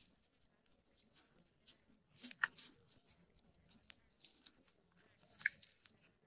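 Faint crinkling and clicking of plastic as gloved hands handle dough and squeeze a disposable piping bag, with two louder crackles about two and a half and five and a half seconds in.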